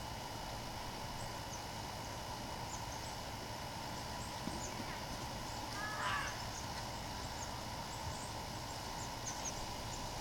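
Backyard birds: many short, high chip notes scattered throughout, and one louder, harsher call about six seconds in, over a steady low background hum.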